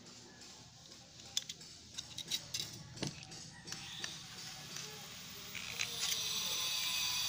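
Aviation snips cutting thin sheet metal: a run of sharp clicks and snaps, with the crinkle of the sheet being handled. From about six seconds in, a steady hissing noise joins and grows louder.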